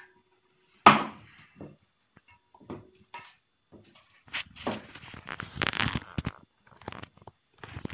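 A sharp clatter about a second in, then hands mixing in a stainless steel bowl, with the bowl knocking and scraping on a wooden cutting board between about four and six seconds in.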